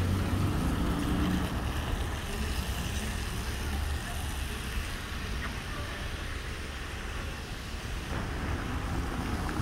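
City street traffic: a steady low rumble of passing cars and other vehicles.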